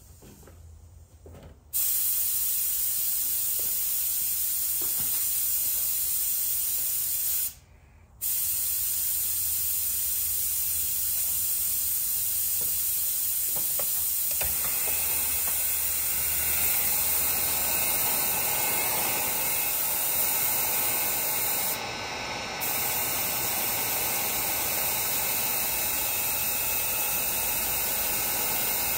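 Heat gun blowing, drying a fresh coat of sealer on tooled leather: a steady rushing hiss that starts about two seconds in and cuts out for a moment about a quarter of the way through before running on.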